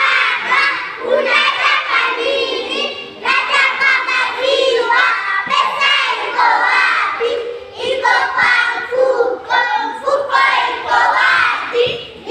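A group of young children chanting a shairi (a Swahili school poem) together in unison, in a sing-song rhythm.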